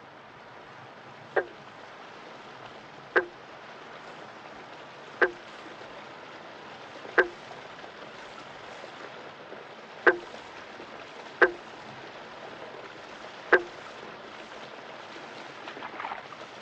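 Night outdoor ambience: a steady rush of running creek water, with a short, sharp click-like call repeating about eight times, one every one and a half to three seconds.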